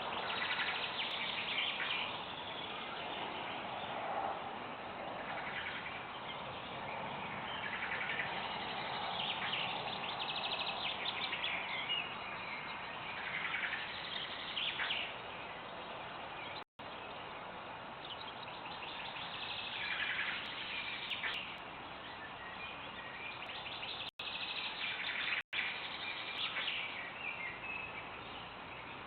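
Several birds singing and calling, a busy mix of short chirps and trills over a steady background hiss. The sound cuts out completely for an instant three times in the second half.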